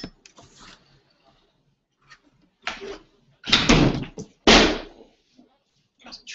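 A sharp click at the start, then a run of loud thumps and rustling bursts about half a second each, the loudest about three and a half to five seconds in.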